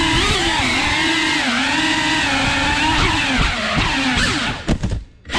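Small FPV drone's motors whining as it flies, the pitch gliding up and down with the throttle. Near the end the sound falls away almost to silence for a moment, then comes back.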